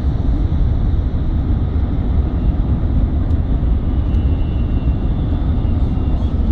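Steady low rumble of tyre and wind noise inside a moving SUV's cabin at highway speed.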